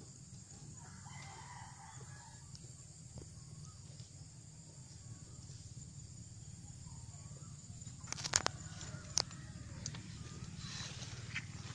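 A rooster crows faintly about a second in. A little past halfway come a few sharp, loud clicks, then a crackling rustle as of dry palm fronds being brushed or stepped on.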